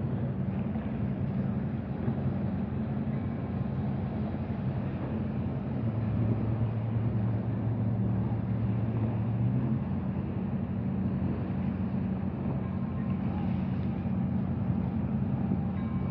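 Steady low engine hum with a noisy haze over it, growing stronger for a few seconds from about six seconds in.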